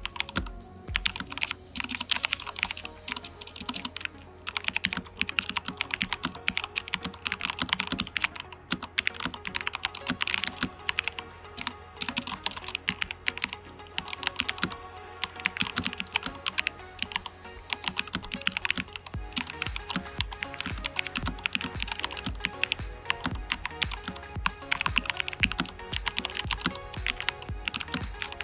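Fast, continuous typing on an Edra EK387 Pro mechanical keyboard with Gateron Pro switches: a dense run of keystroke clacks with short pauses now and then.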